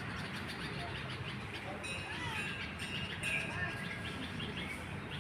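Several small birds chirping and calling with short, quick notes and little up-and-down whistles, busier from about two seconds in, over a steady low background hum.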